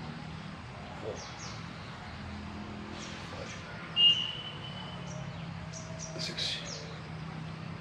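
Birds chirping in short scattered calls over a low steady hum. About four seconds in comes a single sharp clink with a brief ringing tone.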